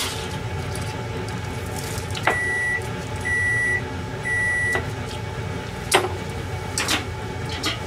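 A kitchen appliance beeps three times, each beep about half a second long and about a second apart, the signal that a cycle or timer has finished. A few sharp clatters follow near the end, over a steady low hum.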